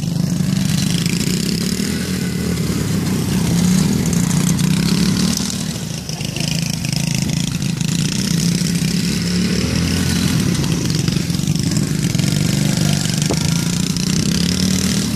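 Small youth quad bike's engine running and revving up and down as it is ridden in tight circles on grass, easing off briefly about six seconds in.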